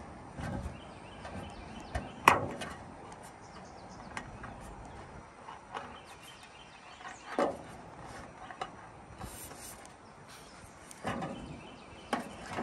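Sheet-metal drip-edge flashing being handled and worked with tin snips: a few separate sharp snaps and knocks, the loudest about two seconds in and more near the end.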